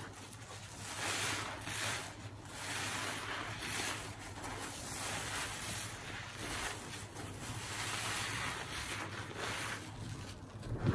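Soapy kitchen sponge squeezed and kneaded by gloved hands in a tub of thick suds, squishing water and foam in repeated swells.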